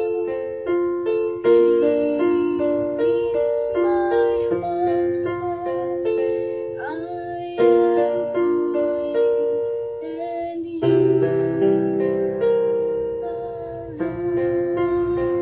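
Electronic keyboard played with a piano sound: a melody over held chords, with deeper bass notes joining about eleven seconds in.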